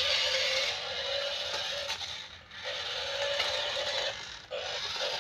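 Small electric drive motor and plastic gearbox of a toy RC transforming car whirring with a steady whine as the car turns in place on tile, with its wheels scraping. The motor cuts out briefly twice, about two and a half seconds in and again near four and a half.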